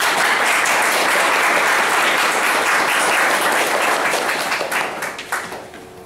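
Audience applauding, starting all at once and dying away over the last couple of seconds.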